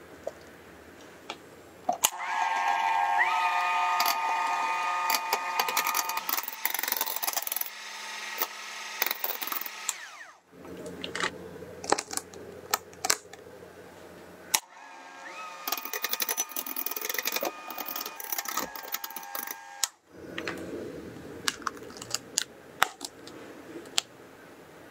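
Electric hand mixer whipping cream and condensed milk in a glass bowl. Its motor whine rises as it spins up, then holds steady, in two runs of several seconds each, with small clicks and taps between them.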